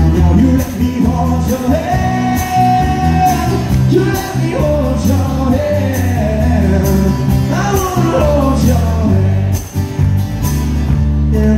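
Live band playing a song: a man sings the lead over strummed acoustic guitar, electric bass and drums.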